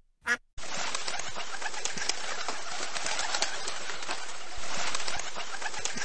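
Two brief bird calls, then from about half a second in a dense, steady outdoor hiss with many small ticks and domestic pigeons cooing.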